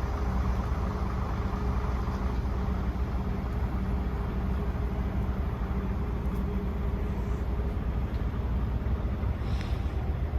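Engine of a Kubota ARN570 rice combine harvester running steadily at a constant speed, a continuous low drone.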